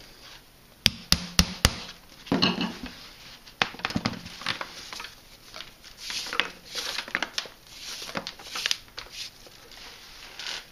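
Four quick, sharp taps about a second in as a caning peg is driven into the woven fibre-rush seat to open up the closed centre hole, then rustling and scraping as a moist fibre-rush strand is threaded through the hole and pulled.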